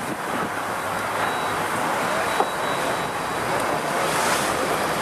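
Wind buffeting the microphone over open sea, a steady rushing noise, with a single sharp click about two and a half seconds in.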